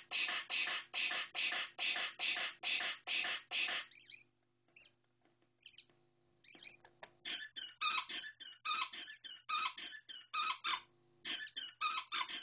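Circuit-bent Star Wars key-ring sound module stuttering out glitched fragments of its sound effects: a chopped, looping pulse about two and a half times a second that breaks off about four seconds in. Faster stuttering bursts with shifting pitch start about seven seconds in, with a short break near the end.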